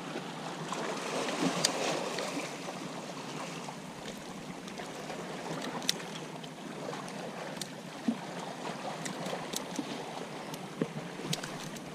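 Steady wash of sea water against breakwater rocks, with a few faint clicks and taps scattered through it.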